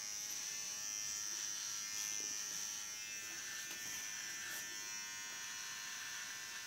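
Small electric hair trimmer buzzing steadily with a high-pitched whine as it is run over a baby's scalp, taking off the last of the hair.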